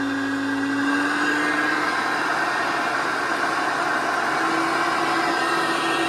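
Hoover Concept One U333 upright vacuum cleaner running on carpet with its transmission freshly rebuilt: a steady motor hum and whine, one tone in it fading about two seconds in and a slightly higher one coming in near the end as the machine is pushed.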